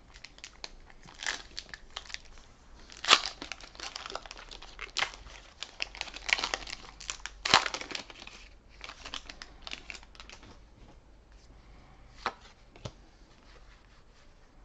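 Foil wrapper of a Pokémon trading card booster pack being torn open and crinkled by hand: a run of sharp crackles and rustling that thins out after about ten seconds to a couple of single crackles.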